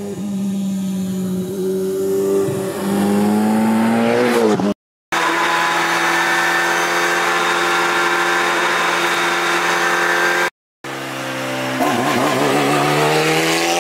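Alpine A110 Cup race car's turbocharged four-cylinder engine running hard on track, in three edited shots separated by brief cuts to silence. The revs climb in the first shot, hold at a steady high note in the middle shot, and climb again near the end.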